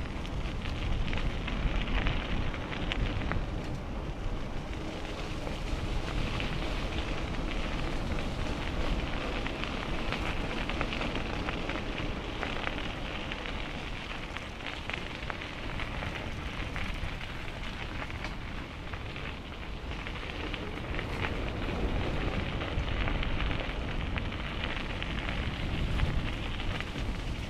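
Bicycle ride heard through a mounted action camera: wind rushing over the microphone and the tyres rolling on the path make a steady rush with many small ticks in it, swelling and easing a little.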